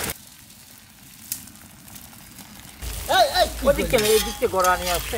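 Beaten eggs frying on a large iron tawa, a faint sizzle with the scrape and clink of metal spatulas. About three seconds in a person's voice and a low rumble come up over it, and the voice is the loudest sound.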